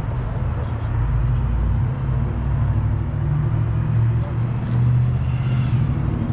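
Car engine idling with a deep, steady rumble.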